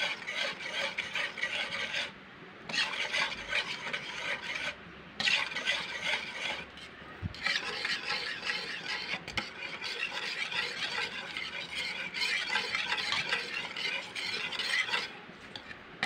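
Wire whisk stirring and scraping through a thick chocolate batter of ground rice and coconut milk in a pot, a continuous wet swishing broken by a few short pauses. The batter is stirred nonstop as it cooks down, to keep it from lumping.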